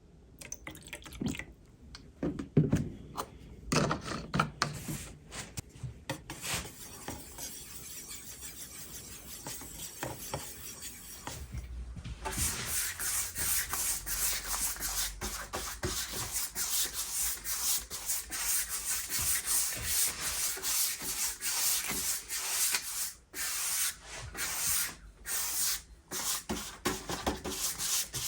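Scattered knocks and handling sounds, then from about twelve seconds in a steady back-and-forth scratching of abrasive being rubbed by hand over an ash desktop, briefly pausing twice near the end.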